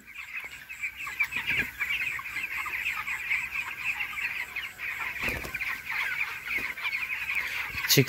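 A large flock of 17-day-old broiler chicks cheeping together: a dense, continuous chorus of short high chirps.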